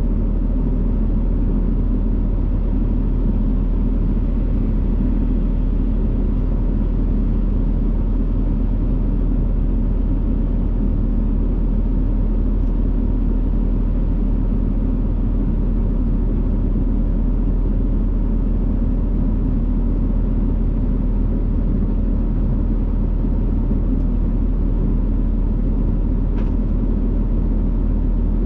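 John Deere 7200 tractor's diesel engine running steadily under load, pulling a manure spreader, with a deep constant rumble and no change in speed.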